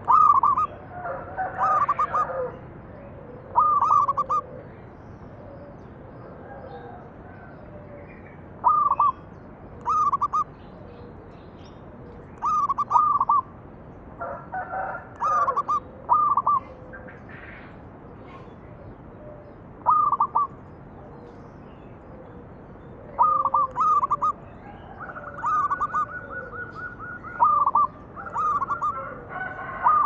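Zebra dove (perkutut) singing: short phrases of several quick cooing notes, repeated every few seconds.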